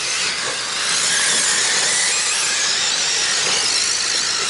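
A pack of RC short course trucks racing on a dirt track: a steady, high-pitched whine of their motors and drivetrains, several at once, with the hiss of tyres on dirt.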